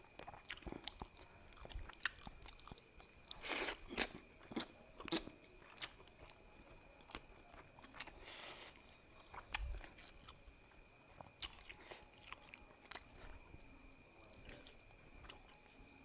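A person chewing and biting food close to the microphone, eating fish: soft irregular mouth clicks and smacks, with two longer noisy mouthfuls about three and a half and eight seconds in.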